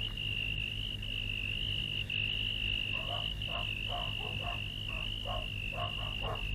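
Cartoon night ambience: a cricket's steady high trill, with frogs croaking in short repeated calls, about two or three a second, from about three seconds in.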